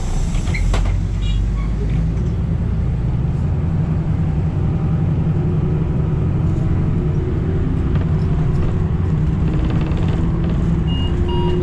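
City bus in motion, heard from inside the cabin: a steady low drone of drivetrain and road noise, with a faint tone in it that rises slowly in the second half.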